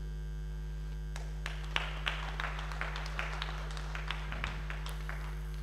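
Scattered applause: a few hands clapping unevenly for about four seconds, starting a second in. A steady electrical mains hum from the microphone system runs underneath.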